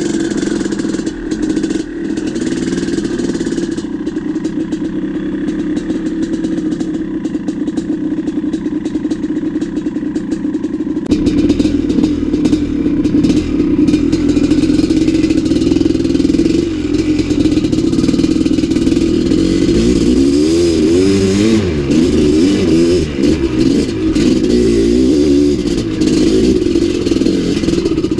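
Maico 700 dirt bike's big single-cylinder two-stroke engine running under riding load, revving up and down as the rider works the throttle on a trail, heard from a mount on the bike. About eleven seconds in the sound gets louder and fuller.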